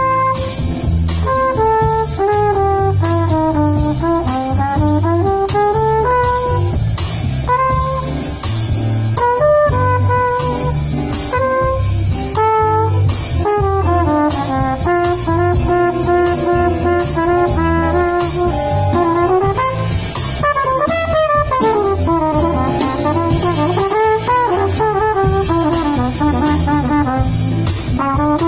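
Flugelhorn playing a slow jazz melody in long slurred phrases, holding one long note around the middle, over a live band backing of bass and drums.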